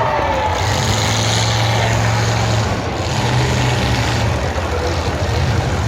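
Engines of demolition derby vehicles running loud, a steady low drone under a broad rush of noise that swells and eases a few times.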